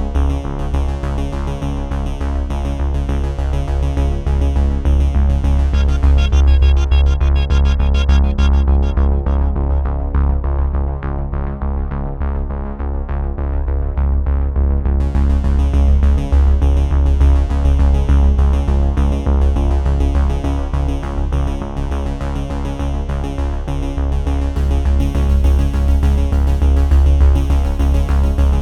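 Electronic background music with synthesizer and a strong steady bass. Near the middle the treble fades away for several seconds, then comes back suddenly.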